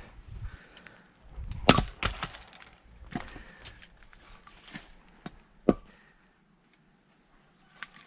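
Firewood being split: a hard strike with the wood cracking apart about a second and a half in, a second strike just after, then lighter knocks of wood and one sharp knock near six seconds.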